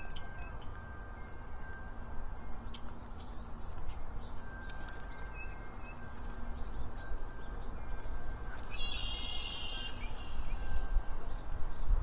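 Outdoor backyard ambience at a bird feeder: birds chirping now and then over a low steady rumble, with a faint ringing tone that comes and goes. About nine seconds in, a louder, harsher call lasts about a second.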